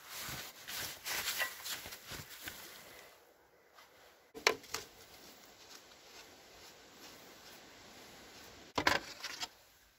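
Rustling and scraping as a gloved hand clears dirt and debris from old tractor parts. Then a single sharp knock a little under halfway through, and a short clatter of knocks near the end as the floor parts are worked loose.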